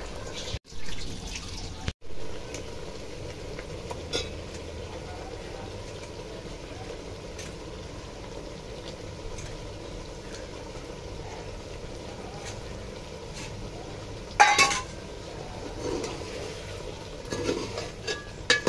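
Steel ladle stirring and knocking in an aluminium pot of potatoes and chicken in curry gravy, with a loud clank about two-thirds of the way through and a few lighter knocks near the end, over a steady faint hiss.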